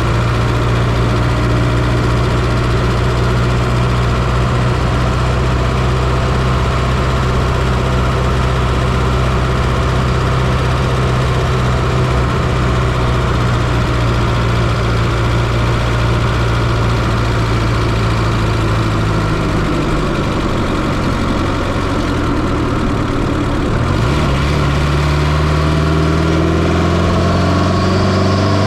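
1995 Fiat Coupe's 2.0 16V turbocharged four-cylinder engine, heard close up from inside the engine bay, running at a steady speed. About twenty seconds in its note dips, and from about twenty-four seconds it climbs steadily in pitch as the engine revs up.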